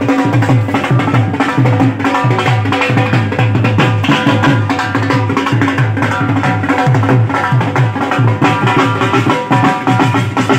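Dhol drums beating a fast, steady rhythm, with a sustained pitched melody line over the beat.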